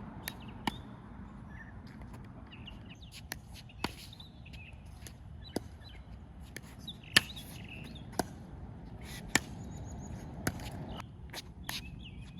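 Pickleball paddles hitting a plastic ball in a rally: sharp pops at irregular spacing, about one a second, the loudest a little past the middle.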